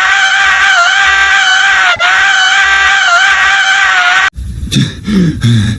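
A high-pitched cartoon scream sound effect, one long cry with a slight waver, cuts off abruptly about four seconds in. A voice starts talking after the cut.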